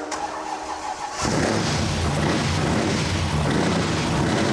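A freshly built 347 cubic-inch Ford small-block V8 fires on its first start about a second in, then runs loud and steady at idle.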